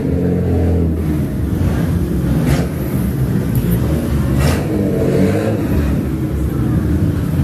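A car engine running steadily, with two short sharper sounds about two and a half and four and a half seconds in.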